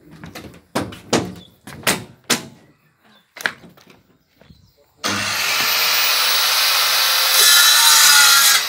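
Handheld electric circular saw switched on about five seconds in, its motor whine rising as it spins up, then cutting through plywood for about three and a half seconds before stopping sharply. Before it, several sharp knocks on wood.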